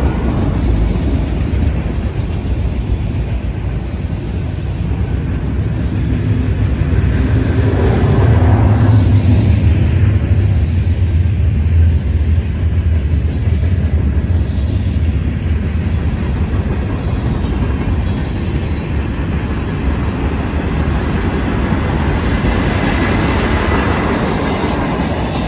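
Freight cars of a passing mixed freight train rolling by: a steady low rumble of steel wheels on the rails, loudest about a third of the way through.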